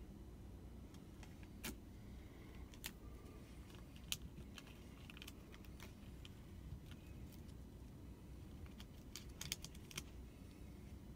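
Faint low background rumble with scattered short sharp clicks, a few at a time, clustering near the end.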